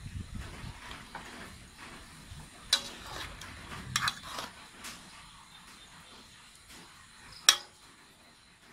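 Metal ladle stirring soup in a metal pot, clinking against the pot's side now and then; sharp clinks stand out a little under three seconds in, about four seconds in, and loudest near the end.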